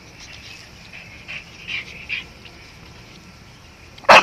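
Dogs play-fighting: a few faint, high whines in the middle, then a single short, loud bark near the end.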